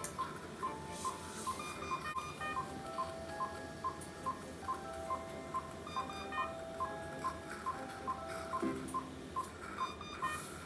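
Operating-room patient monitor's pulse oximeter beeping steadily about two and a half times a second, a fast pulse rate typical of a child. Soft sustained music notes play alongside.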